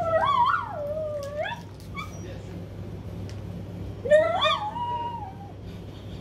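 A dog whining and howling in two long calls that slide up and down in pitch, the second about four seconds in.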